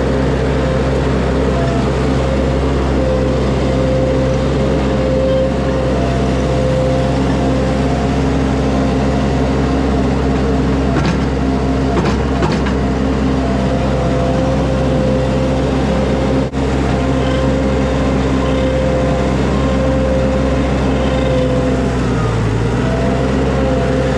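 Skid steer's diesel engine running steadily, with a steady whine over it and a few light knocks around the middle.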